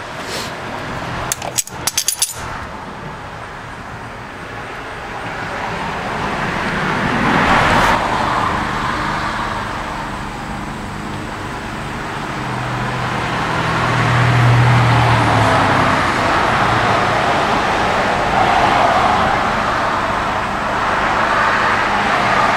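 A few quick clicks about two seconds in, then a steady rushing noise of passing road traffic that swells and fades several times, with a low engine hum in the middle.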